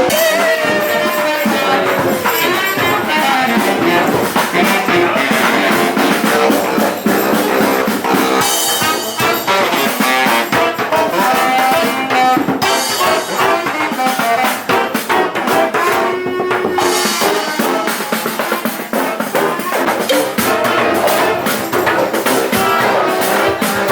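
Acoustic street band of brass instruments and drums playing.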